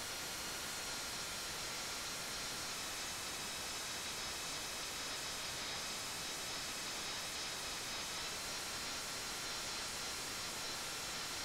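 Steady static-like hiss with faint high whining tones; the whine drops slightly in pitch about three seconds in and rises again about eight seconds in.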